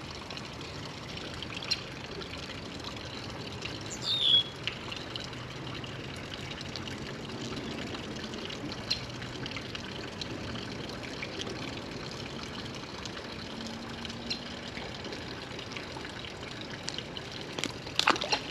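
Creek water trickling steadily, with one short downward-sweeping bird chirp about four seconds in and a few sharp clicks near the end.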